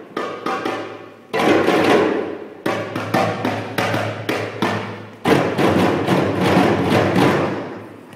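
A group of children playing goblet hand drums (dumbeks) together. A dense flurry of strikes is followed by a run of separate beats, then another flurry that dies away near the end.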